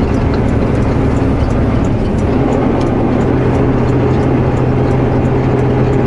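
Semi-truck's diesel engine pulling steadily as the chained-up truck crawls up a snowy mountain highway, heard from inside the cab; about two and a half seconds in the engine settles into a steady low drone. Faint regular ticking sits over it.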